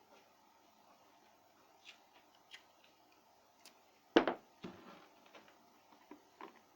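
Scattered light clicks and taps of small parts and tools being handled, with one sharp knock a little past four seconds in and a few smaller knocks after it.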